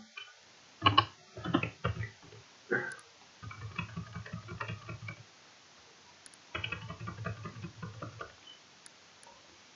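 Typing on a computer keyboard in two quick runs of key clicks, the second starting about two-thirds of the way in. A few louder short sounds come about a second in.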